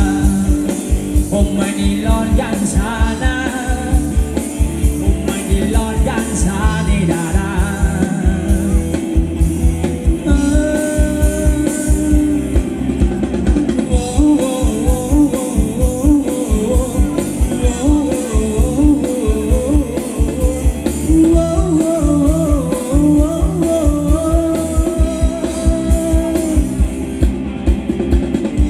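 Live band music for ramwong dancing: a fast, steady drum beat under bass and a wavering melody line.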